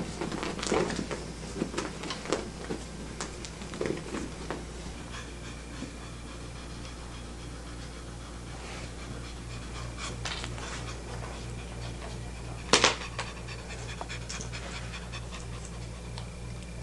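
Domestic cat panting in quick, even breaths, worked up from excited play. Scuffling knocks in the first few seconds and one sharp click about three-quarters through.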